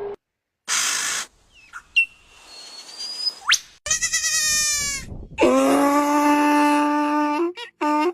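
A series of animal calls: a quavering call, then a long, steady call held for about two seconds, and short calls near the end. A short burst of hiss and a quick rising whistle come before them.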